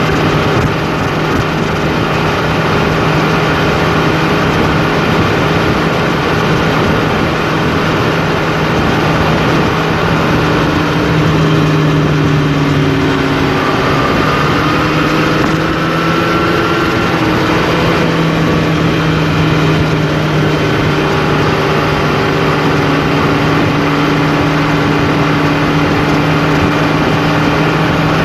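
A vehicle's engine and tyre-on-road noise heard from inside the cab while cruising at steady highway speed: a continuous low drone with a few faint higher tones that drift slightly in pitch partway through.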